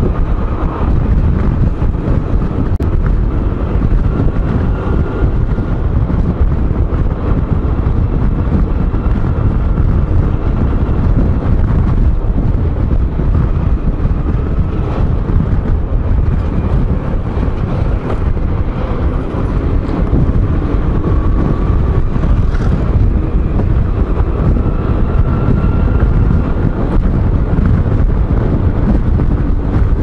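Wind buffeting the microphone of a scooter riding at road speed, with the scooter's engine faintly underneath, humming and slowly shifting in pitch.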